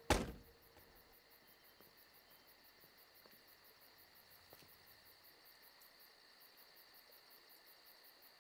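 A single heavy thump right at the start, a car door shutting, then faint, steady chirping of crickets.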